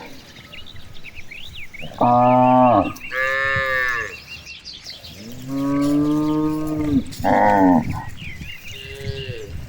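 Village cattle mooing repeatedly: about five moos of differing pitch and length, one drawn out about halfway through.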